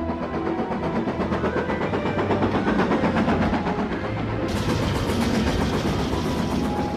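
Steam locomotive and its train running at speed with a fast, even, rhythmic chuff. A loud steam hiss joins about halfway through.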